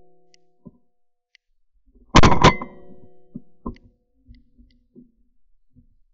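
A shotgun fires a single shot about two seconds in, a sharp blast with a brief ringing tail. Two lighter clicks follow about a second later.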